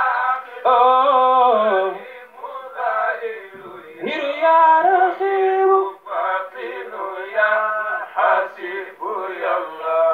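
A man chanting solo into a microphone without accompaniment, holding long, wavering notes between short breaths.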